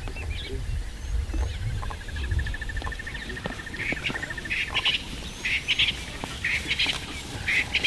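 Birds calling in the bush: a long, fast trill of evenly spaced notes lasting about three seconds, then short, bright calls repeating about twice a second. A low rumble underneath fades away in the first couple of seconds.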